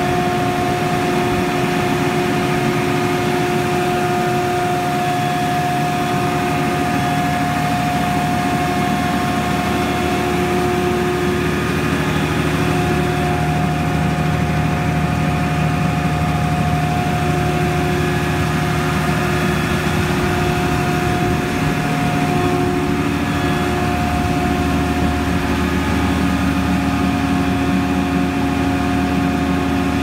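ACE/TLD 55-ton aircraft ground air-conditioning unit running: its Deutz diesel engine drives a Frick screw compressor at a steady speed, with a constant whine over the engine's hum.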